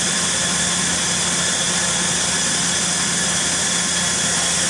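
Royal Master TG-12x4 centerless grinder running: a steady machine hum under an even hiss, with no separate clicks or strokes.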